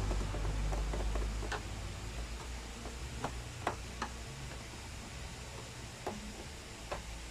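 Scattered light clicks and taps of hands and tools on a projector's plastic housing as its lamp is worked loose, with a low rumble of handling noise in the first second or so.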